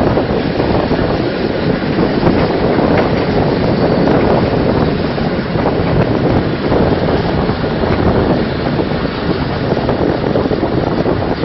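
Wind buffeting the microphone held out of a moving passenger train, over the steady rumble of the train running on the track as it pulls into a station.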